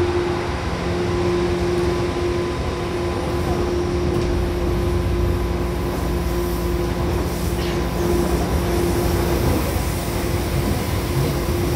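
Seibu 2000 series electric commuter train (set 2087F) running: a steady rumble of the wheels on the rails with a constant hum.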